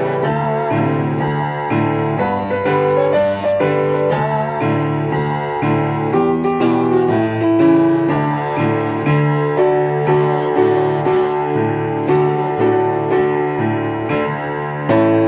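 Instrumental keyboard music in a piano sound: a melody over a repeating bass line.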